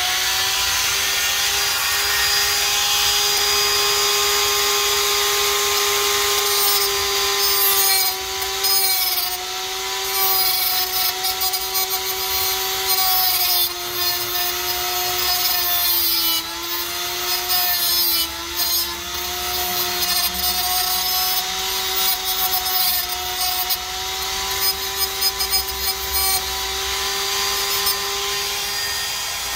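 Die grinder with a cutoff wheel running at a steady high whine. From about a third of the way in, gritty grinding noise comes and goes and the pitch sags several times as the wheel is pressed into the metal nutsert inserts, grinding them down toward the wood.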